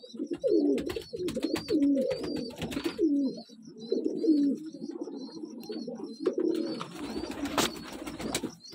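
Domestic pigeons cooing over and over in low, rolling calls, with a thin high chirp repeating about twice a second above them and a few sharp clicks.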